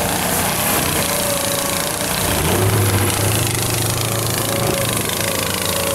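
Small engine of a stripped-down Chevy S10 cab buggy running as the buggy drives across dirt, its low note growing steadier and stronger about two and a half seconds in.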